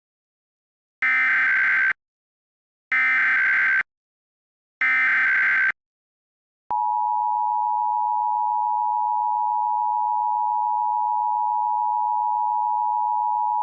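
Emergency Alert System SAME header: three bursts of modem-like digital data tones, each about a second long with about a second between them, followed about seven seconds in by the steady two-tone EAS attention signal (853 and 960 Hz sounding together). Together they open a required monthly test of the alert system.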